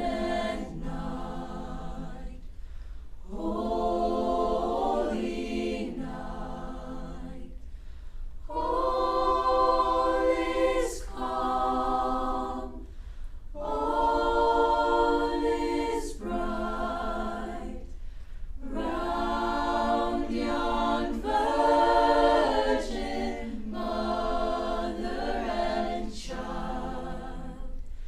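Student choir singing a cappella, in sustained phrases of a few seconds with short breaths between them.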